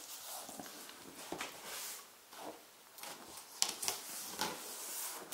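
Cardboard and paper packaging rustling and scraping as orange manual envelopes are handled and set down in a cardboard shipping box, with a few sharp taps near the end.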